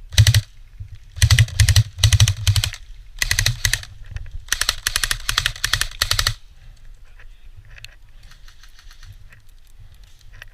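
Airsoft gun firing rapid full-auto bursts, five close, loud strings of fast clicking shots over about six seconds, the longest lasting nearly two seconds. Fainter bursts follow from farther off near the end.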